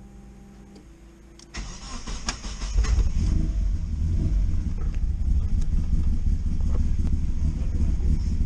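A Mazda Miata's freshly rebuilt BP 1.8-litre four-cylinder, heard from inside the car, cranks on the starter for about a second and catches about three seconds in. It then runs steadily. This is the first start since the engine swap, after a stuck PCV valve was fixed.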